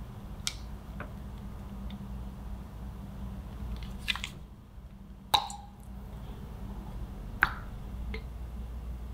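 A wire whisk taps and clinks against a glass mixing bowl, followed by a few sharp glass clinks. The loudest comes a little past halfway and has a short ring. A low steady hum runs underneath.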